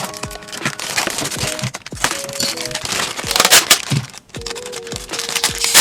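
Background music with a melody of held notes, over irregular crinkling and rustling of plastic packaging being handled and torn open, loudest about three and a half seconds in.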